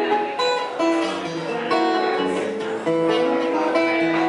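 Live acoustic guitar music playing, with held notes and chords changing every second or so.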